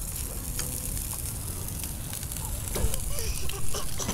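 Cooking fire crackling with irregular sharp pops over a steady low rumble.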